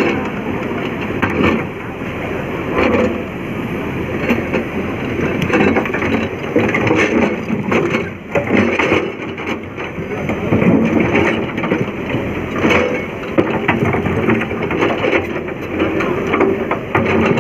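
Tracked excavator at work: large rocks crunching and cracking against each other and the steel bucket as it pushes them into place, with repeated knocks throughout over the running machine.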